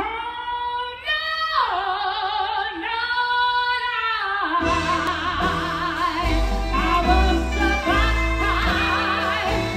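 A woman singing a melody with vibrato, at first almost alone, sliding down in pitch about a second and a half in; about four and a half seconds in a full backing track with bass and a beat comes in under her voice.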